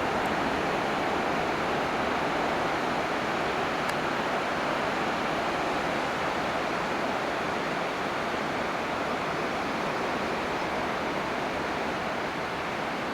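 Ocean surf as a steady wash of breaking waves, with no single break standing out, from leftover typhoon swell.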